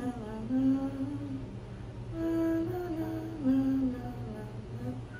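A woman humming a slow tune, holding notes and sliding between them, over a steady low hum.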